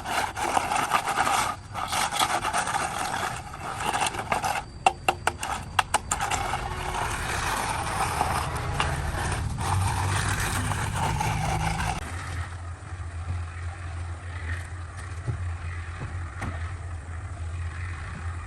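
Repeated scraping and rubbing on a hard surface, with a quick run of sharp clicks about five seconds in. After about twelve seconds the scraping gives way to a steady low hum of a motor.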